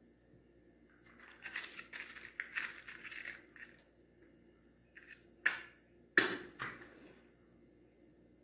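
A small matchbox being handled and opened, with a run of soft rattling and scratching, then a wooden match struck against the side of the box in three quick scrapes about five and a half to six and a half seconds in, the loudest one lighting it.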